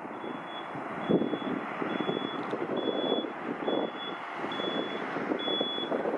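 A vehicle's reversing beeper sounds a steady high tone about once a second, each beep lasting about half a second. Under it runs the broad, steady rumble of a Boeing 737-700's CFM56 jet engines at takeoff power as the airliner climbs out.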